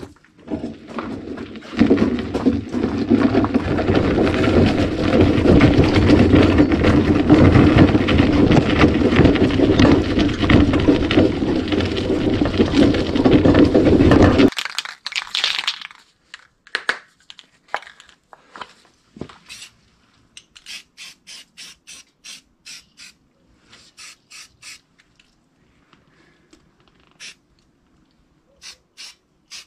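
Honda EB6500 generator being wheeled over rough dirt ground, with loud, dense rattling and rumbling from its wheels and frame for about twelve seconds, then an abrupt stop. After that come scattered light clicks and taps of hands working on the generator's fittings.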